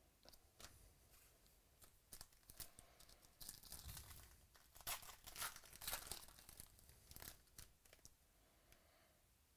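Plastic wrapper of a football card pack being torn open and crinkled by hand: a quick run of crisp crackles, loudest in the middle, with a few light clicks of card handling before and after.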